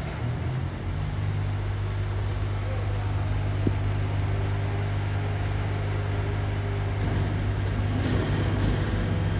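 BYD electric garbage truck giving off a steady low hum, with a single click about three and a half seconds in.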